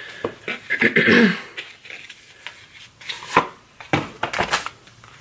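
Makeup palette packaging being worked open by hand, with several sharp clicks and knocks in the second half. A brief vocal sound, like a throat-clear or an effort noise, comes about a second in.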